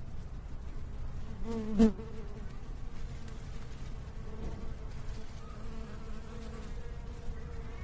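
Flying insect buzzing, swelling to a loud close pass about two seconds in and humming more faintly again later, over a low steady rumble.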